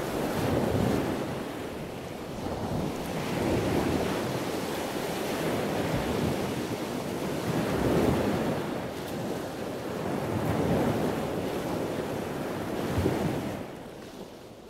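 Ocean surf breaking on a beach: a steady wash of waves that swells and eases every few seconds, dropping away near the end.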